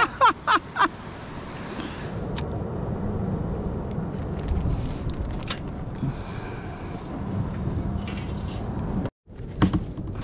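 Steady rumbling noise of wind on the microphone at the shore, with a few faint clicks. It breaks off for a moment near the end.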